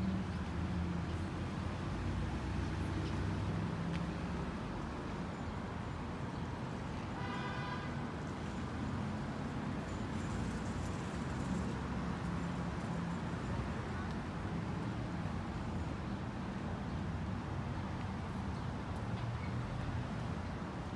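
Steady riverside background of rushing river water and a distant city traffic hum, with a single short honk about seven seconds in.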